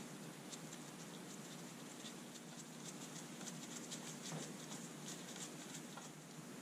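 A screwdriver backing out the carburetor mounting screws on a Stihl 015 chainsaw. It makes faint, rapid, irregular ticks and scrapes as the screws turn.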